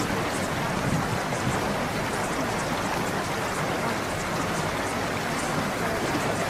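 Steady water ambience of a cave: a constant wash of running water with scattered drips.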